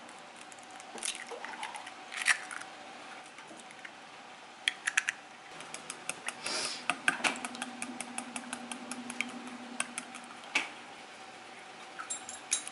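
Eggs being cracked on a ceramic bowl, a couple of sharp cracks in the first few seconds. From about five seconds in, a metal utensil beats the eggs in the bowl, tapping and scraping against the ceramic in quick irregular clicks. A faint steady hum runs underneath.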